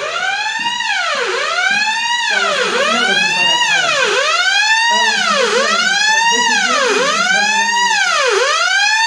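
Smoke detector alarm sounding under test: a loud wailing siren tone that glides up and falls back again about every one and a half seconds, over and over.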